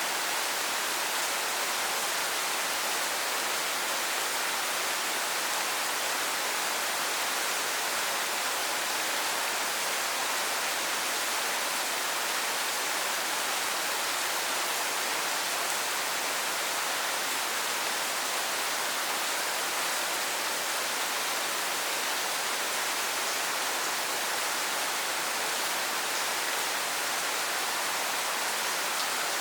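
Steady heavy rain falling, an even hiss with no single drops or other sounds standing out.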